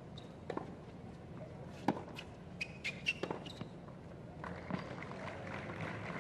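Tennis rally on a hard court: sharp racket strikes on the ball about a second or so apart, with short sneaker squeaks in between. About four and a half seconds in, the crowd starts applauding and cheering as the point ends.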